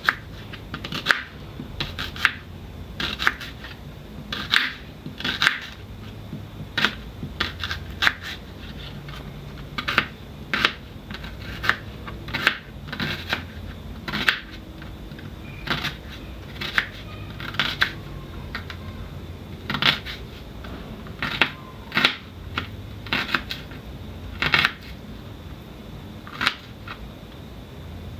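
Kitchen knife cutting onions and tomatoes against a chopping board: sharp, irregular cuts, roughly one a second.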